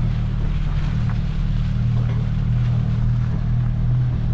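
Engine running at a steady speed: a low, even drone.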